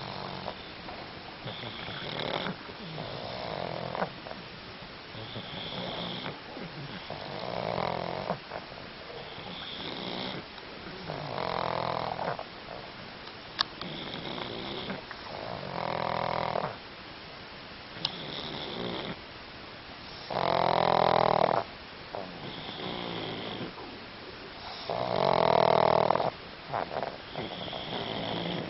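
A pug snoring in a steady rhythm, a rasping snore about every four seconds with a thin high whistle between snores. The snores get louder in the second half. Two sharp clicks fall near the middle.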